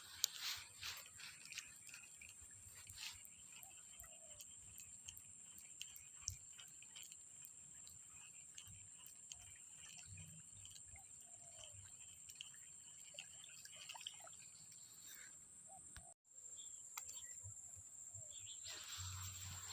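Near silence: faint outdoor ambience with a steady high hiss and scattered small clicks and taps.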